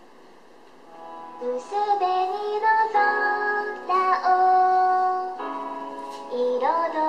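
A song with a high, child-like singing voice starts about a second in, played through the small speaker of a figure-activated toy platform once a figure is set on it. The voice holds long notes with short slides between them.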